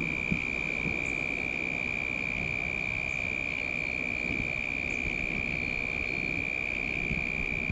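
An insect trilling steadily on one unbroken high pitch, over a low background rumble.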